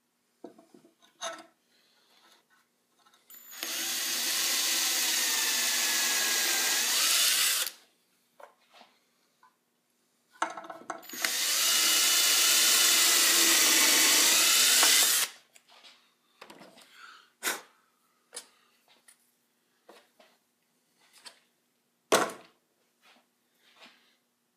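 Handheld power drill boring a hole into a small wooden spacer block held in a handscrew clamp, running in two bursts of about four seconds each. Light clicks and knocks of handling come between and after the bursts.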